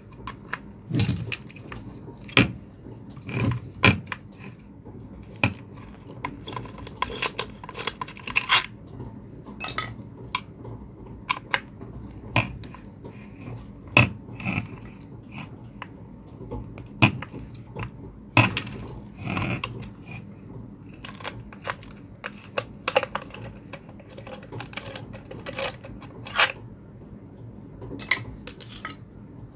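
Irregular metallic clinks, clicks and knocks of hand tools and loose metal parts as a submersible pond pump's casing is unbolted and taken apart.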